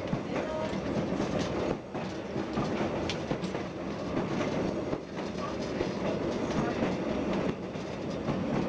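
Replica Pacific Electric Red Car streetcar running along the track, heard from the front of the car: a steady rumble with the wheels clicking over rail joints now and then.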